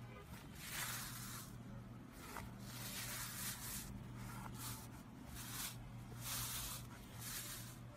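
Hands pressing and sliding over a tub of blue glitter slime, each push giving a short hissing, crackly rush of sound, roughly once a second.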